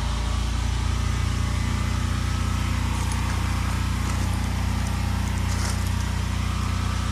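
A small engine running steadily at idle, a low even drone that doesn't change.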